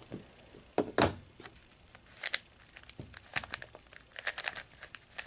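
Plastic layers of a Z-Penrose puzzle cube being turned by hand, clicking and rattling in short irregular runs, with the sharpest clicks about a second in and quicker clusters in the second half.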